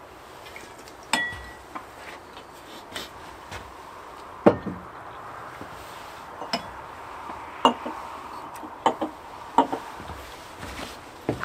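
Tableware clinking during a meal: metal spoons tapping ceramic bowls and glass knocking on a wooden table, as a series of separate sharp clicks. One clink about a second in rings briefly, and a heavier knock comes about four and a half seconds in.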